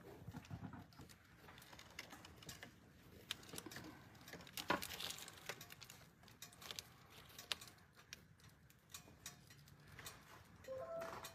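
Faint scattered small clicks and crinkles as metal tweezers and rubber-gloved fingers work a paper banknote on crumpled aluminium foil, with one sharper click about halfway through and a brief squeak near the end.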